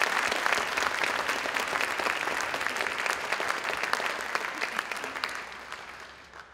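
Audience applauding, a dense patter of clapping that fades away over the last two seconds.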